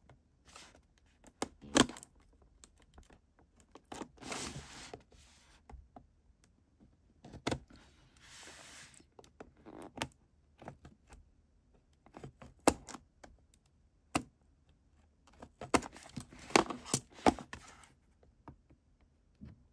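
Small cardboard box handled on a table while its sealing sticker is picked and cut at with scissors: scattered sharp clicks and taps, with a couple of short scraping rustles.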